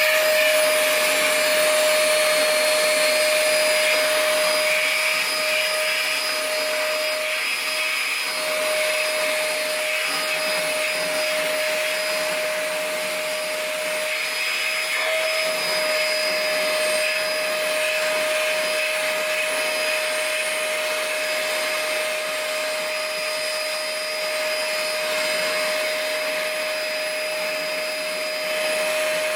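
Shop vac running steadily, a high motor whine over a rushing hiss of suction, as it vacuums loose dust and dirt off a pinball playfield.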